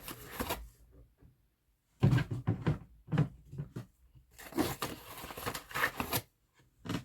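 Cat food packaging being handled: rustling and crinkling with light knocks in irregular bursts, starting about two seconds in after a moment of quiet.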